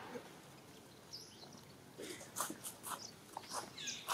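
A run of short clicks and rustles in the second half, with a couple of faint high chirps.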